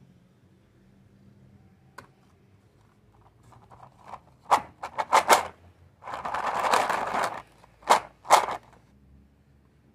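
Mini Oreo cookies rattling against each other and the walls of a clear plastic tub as it is shaken: a few short shakes, a longer shake of about a second and a half, then two more short shakes. A single light click comes about two seconds in.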